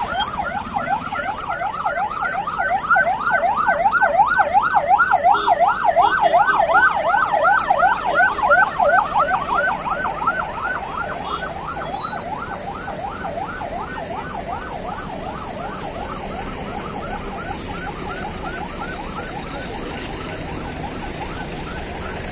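A fast yelping siren on a passing police or border-guard convoy vehicle, rising and falling several times a second. It is loudest in the first half, then fades and runs on faintly, over the engines and tyres of passing trucks and pickups.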